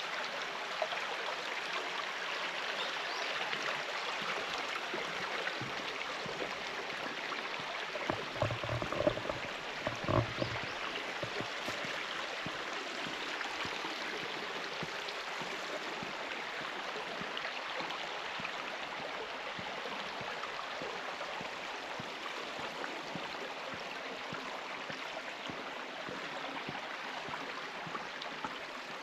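Clear mountain stream running and babbling steadily over rocks. A few low thumps come about eight to ten seconds in.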